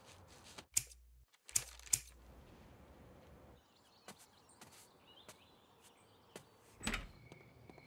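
A few dull thumps in the first two seconds, as of a car's hatchback being loaded and shut, then quiet outdoor ambience with faint bird chirps and scattered light ticks.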